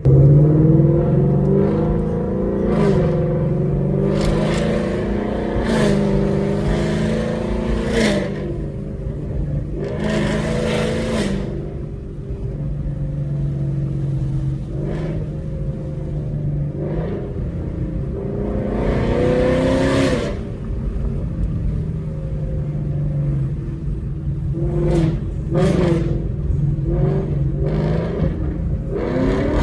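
Ford Mustang GT's 5.0 V8 with Kooks long-tube headers, driven on the road: the engine's pitch climbs and drops again several times as it accelerates and shifts, with a few louder surges of exhaust rasp.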